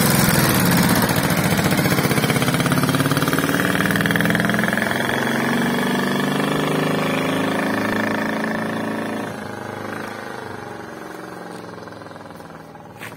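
Dnepr sidecar motorcycle's flat-twin engine pulling away, its note rising and falling as it gathers speed, then fading steadily as it rides off into the distance.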